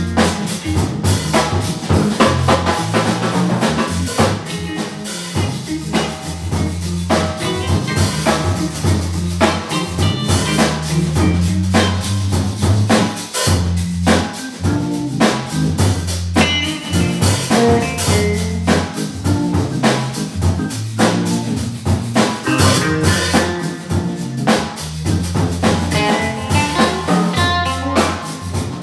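Live blues organ trio playing: Hammond organ carrying a low bass line, with electric guitar and a drum kit keeping a steady beat.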